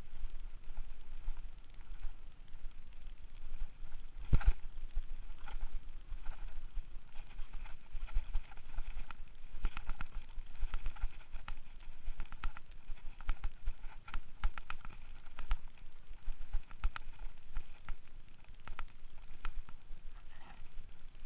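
Mountain bike rattling and clattering over a rough dirt trail at speed, a run of irregular knocks with one sharp jolt about four seconds in, over a steady low rumble.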